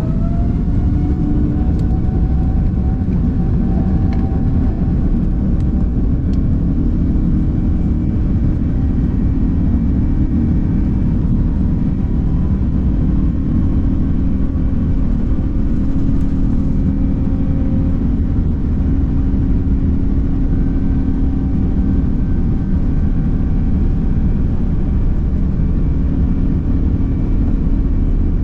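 Airbus A330-900neo's Rolls-Royce Trent 7000 turbofan engines heard from inside the cabin: a whine rises in pitch over the first couple of seconds as the engines spool up, then a loud, steady rumble with a steady hum continues.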